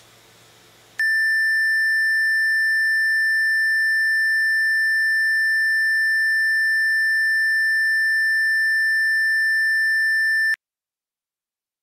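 Steady single-pitch test tone being recorded on all eight tracks of a Tascam TSR-8 reel-to-reel deck. It starts suddenly about a second in, after faint hiss, holds unchanged, and cuts off abruptly near the end.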